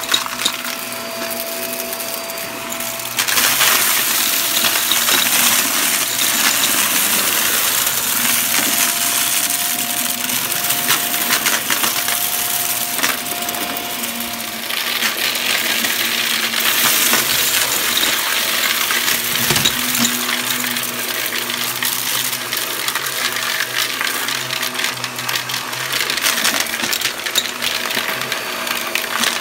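Shark upright vacuum cleaner running over carpet, its motor giving a steady tone under a dense clicking crunch as bits of debris are sucked up through the nozzle. The crunching gets louder about three seconds in.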